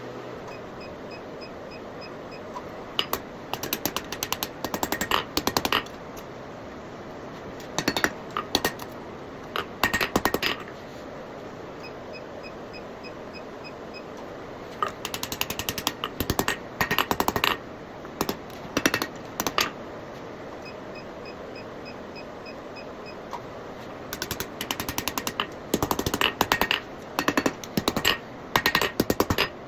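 Hammer blows on hot steel bar over the anvil, rolling the curls of a forged snail. The blows come in four runs of rapid strikes with pauses between them, over a steady background hiss.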